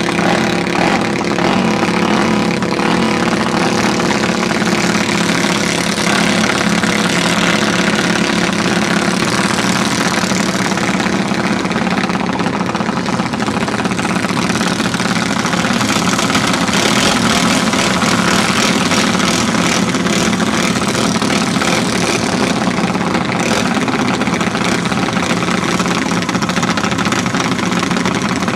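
A pack of dirt-oval racing karts with single-cylinder four-stroke clone engines running at racing speed, a loud and continuous engine noise.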